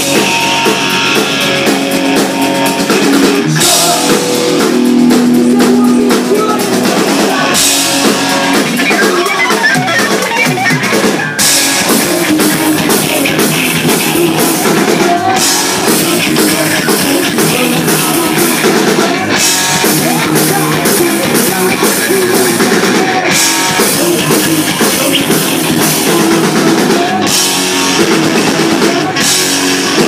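Live hard rock band playing an instrumental passage at full volume: drum kit, distorted electric guitar, bass and keyboards through a PA, with cymbal crashes about every four seconds.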